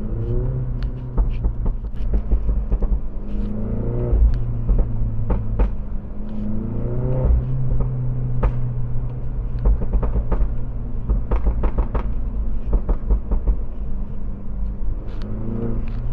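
Mini Cooper S JCW's 2-litre inline-four engine and sports exhaust under hard driving, exhaust valves open in sport mode: the revs climb several times, each climb breaking off at a gear change, over a steady low rumble. Sharp pops and crackles from the exhaust run through it.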